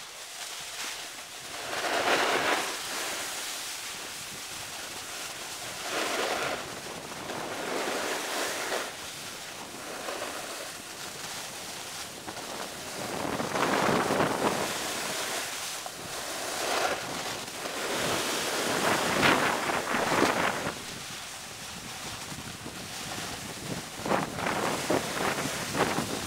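Edges sliding and scraping over snow in repeated swells of a second or two each, with wind on the microphone.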